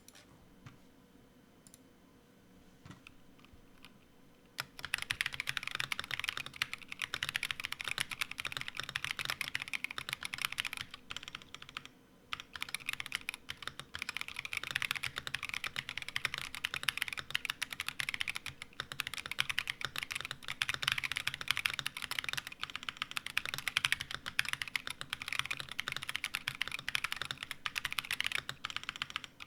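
Typing on a Portico75 mechanical keyboard fitted with unlubricated Boba U4T tactile switches and PBT keycaps. A few scattered key presses come first; fast, continuous typing starts about four seconds in, with a brief pause about twelve seconds in.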